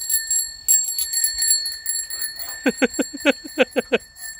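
A city bicycle's bell rung rapidly over and over, its metallic ring lasting between strokes. About two and a half seconds in comes a quick run of seven short rising squeaks.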